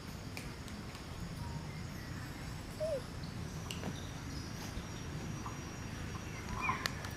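Outdoor ambience: a steady background hiss with a faint, steady high whine, scattered faint clicks, one short falling call about three seconds in, and a few brief squeaks near the end.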